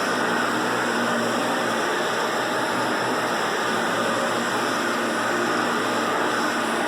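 1996 Hoover Power Drive Supreme vacuum cleaner running steadily, a constant rush of air over its motor hum.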